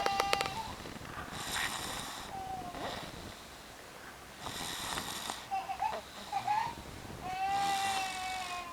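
A sleeping boy snoring: three noisy breaths about three seconds apart, several with a high whistling tone.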